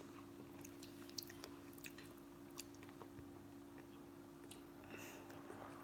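Faint chewing with small scattered mouth clicks, over a steady low hum.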